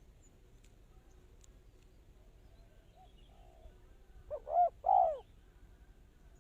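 Spotted dove cooing: a faint coo about three seconds in, then a loud phrase of three arching coos near the end.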